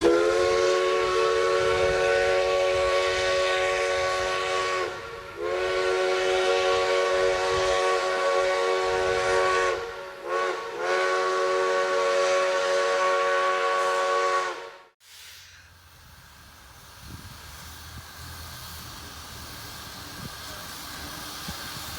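A multi-chime train whistle sounding a chord in four blasts, long, long, short, long: the grade-crossing signal. About two-thirds of the way in it cuts off abruptly, leaving a much quieter steady rumble and hiss.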